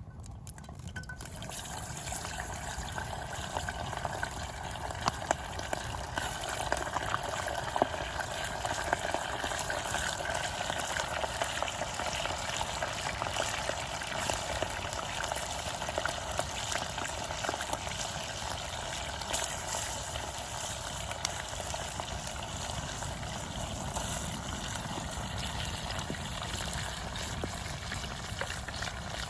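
Meat frying in a kazan over a campfire: a steady sizzling hiss with scattered sharp crackles.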